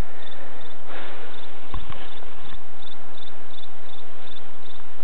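Crickets chirping in a steady rhythm, about three chirps a second, over a loud, steady, even noise, with a single low thump near the middle.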